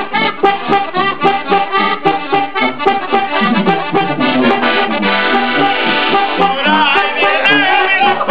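An accordion and a tuba playing a tune together with a steady beat. The accordion is the loudest part and carries the melody over the tuba's low notes.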